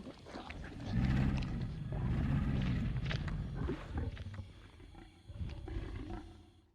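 Film dinosaur sound effect: a deep animal growl, loudest in two long passages about a second and two seconds in, followed by quieter rasps and a shorter growl near the end, then a sudden cutoff.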